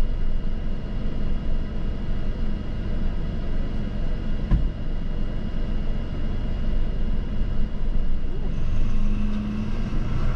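Steady low rumble of a vehicle running, with road or wind noise, and a single thump about four and a half seconds in.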